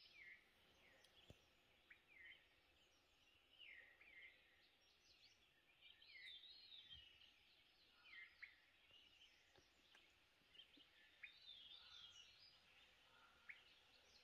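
Faint birdsong: several birds giving short calls, many of them sliding down in pitch, over a quiet background.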